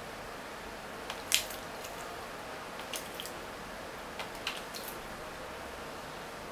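Peach-faced lovebird moving about on a plastic cage tray: a scatter of short, sharp high clicks and scratches over a steady hiss, the sharpest about a second and a half in.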